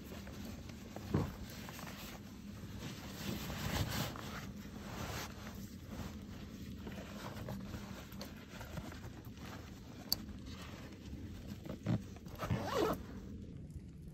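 Zipper being pulled on fabric gear, with the rustle of handling it: a few short zip strokes, louder ones about a second in and near the end.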